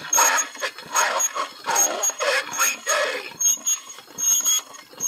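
An early GAF Talking View-Master playing a Popeye reel's voice track from its built-in miniature record: a garbled, distorted voice with no bass and a thin high tone coming and going. This is the abysmal sound quality of the first, non-amplified model.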